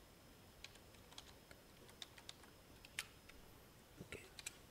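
Computer keyboard keys tapped in a faint, irregular run of single clicks as a password is typed.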